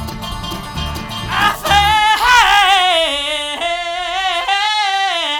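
A live bluegrass band playing over a steady bass beat. About two seconds in the band drops out and a singer holds one long, wavering note that slides slowly downward.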